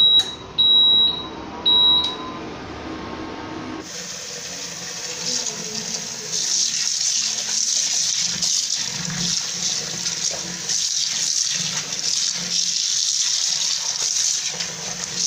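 Induction cooker beeping three times as it is switched on, each a short steady high beep. About four seconds in, tap water runs steadily onto leafy greens being rinsed by hand in a basin.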